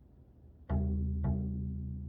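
Frame drum struck twice in a quick double beat, about half a second apart. Each stroke gives a deep, booming tone that rings on and fades slowly.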